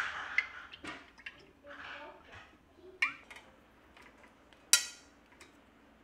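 Metal kitchenware clinking: metal tongs tapping a wire baking rack and tray in a handful of sharp clinks, the loudest ringing briefly near five seconds in, with soft rustling in the first two seconds.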